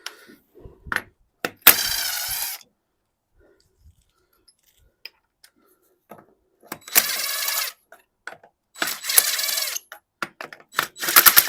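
Small cordless impact driver running three times in bursts of about a second each, spinning off the wheel nuts of a utility vehicle's wheel, with metallic clinks of the loose nuts near the end.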